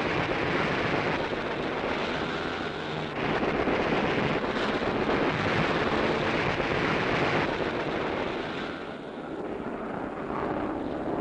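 Newsreel sound-effects track of aircraft engines: a dense, steady roar that changes character abruptly about three, four and a half and seven and a half seconds in, and eases off somewhat near the end.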